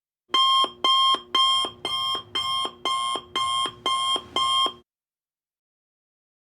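Electronic alarm beeping nine times, about two beeps a second, each beep a steady high tone that drops to a short low tone. It stops abruptly a little under five seconds in.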